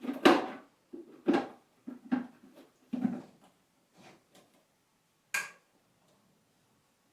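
Hard plastic clicks and knocks, about six spread over five seconds, from the parts of a bagless cyclonic vacuum's dust tank being handled as the filter and sponge are fitted back into it.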